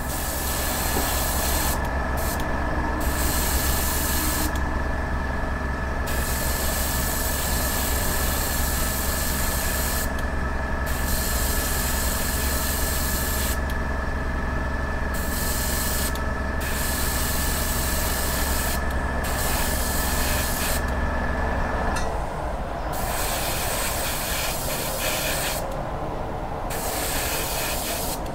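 Airbrush spraying paint onto a small plastic model propeller, its hiss of air and paint stopping and starting in many short and long bursts. A steady machine hum runs underneath and cuts out about two-thirds of the way through.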